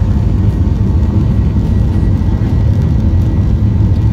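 Steady low rumble inside the cabin of a Boeing 737-800 taxiing on its CFM56-7B engines, with a faint steady high tone above it.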